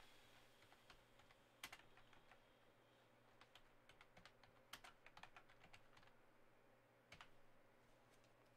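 Faint typing on a computer keyboard: a few scattered key clicks, then a quick run of keystrokes in the middle, and a single click near the end.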